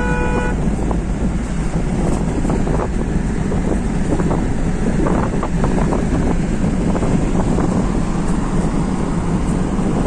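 Steady road noise of a car driving on a highway, heard from inside the cabin: engine and tyre rumble with light knocks. A horn honk ends about half a second in.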